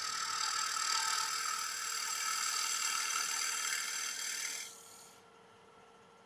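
A turning tool cutting into the inside of a spinning damson-wood bowl on a wood lathe, a steady scraping hiss as the bowl is hollowed. The cut stops about four and a half seconds in, leaving only the lathe's faint running hum.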